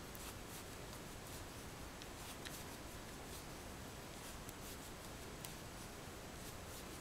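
Faint scattered clicks and rustling of wooden knitting needles working yarn as a row is knitted, over a steady low hiss.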